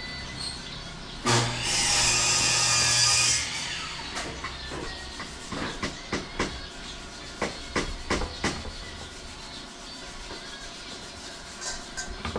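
An electric power tool, most likely a saw cutting wood, runs for about two seconds near the start and stops abruptly. It is followed by a series of irregular sharp knocks and taps on wood.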